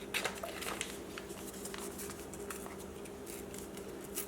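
Faint scattered clicks and light taps of small kitchen items being handled, over a steady low hum.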